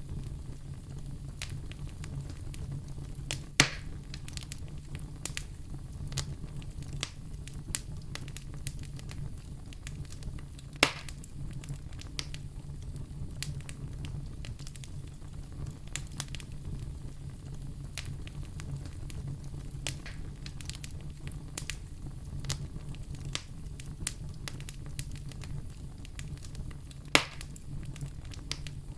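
Fire crackling in a fireplace: a steady run of small crackles over a low, even rumble, with three louder sharp pops, one a few seconds in, one about a third of the way through and one near the end.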